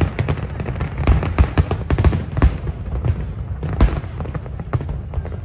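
Aerial fireworks shells bursting in quick succession, a dense string of sharp bangs and crackles over a steady low rumble, with one strong bang about four seconds in.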